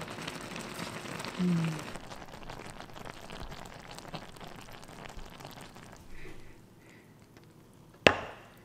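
Spicy noodle stew simmering in a frying pan, a fine crackling bubble that dies down about six seconds in. Near the end the pan's rim knocks once, sharply, against a glass bowl as the stew is tipped out.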